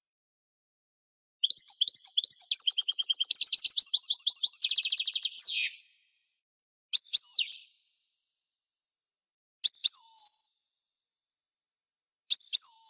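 European goldfinch singing: a fast, twittering song phrase of about four seconds, starting about a second and a half in and ending in a downward sweep, then three short calls a few seconds apart, the last two ending in a held high note.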